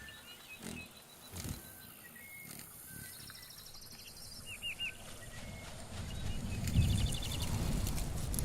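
Birds chirping and trilling over a natural outdoor ambience, with a few knocks. A low rumble builds up from about six seconds in.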